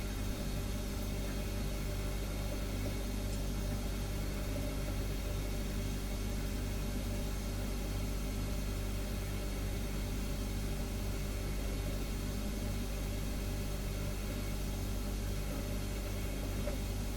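Refrigerator humming steadily: a low, even hum with several fainter steady tones above it.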